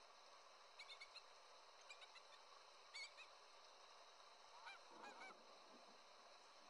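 Faint honking calls of a flock of geese: short calls in small scattered clusters, with a quicker run of calls about five seconds in.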